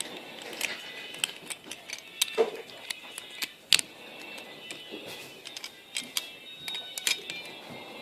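Small sharp clicks and taps at irregular intervals as the die-cast and plastic parts of a Hot Wheels toy car are handled and snapped together.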